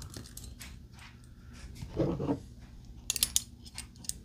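Handling of a steel carabiner and rope: light rustling, a short low scuff about two seconds in, then a quick run of sharp metal clicks from the carabiner a little after three seconds.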